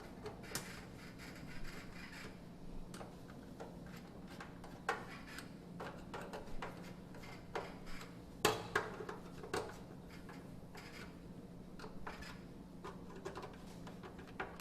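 Irregular light taps, clicks and knocks of hand tools on a washing machine's panel: the part with a seal is tapped around to seat it and its screws are tightened. The loudest knock comes a little past halfway, over a steady low hum.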